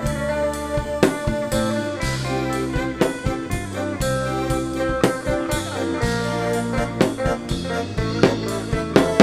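Live band playing an instrumental passage with no singing: guitar over keyboard and bass, on a steady beat of about two strokes a second.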